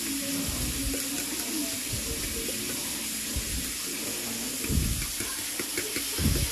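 A metal spoon stirring thick cocktail sauce in a ceramic bowl: soft wet scraping with a few faint ticks and a couple of dull bumps, over a steady hiss.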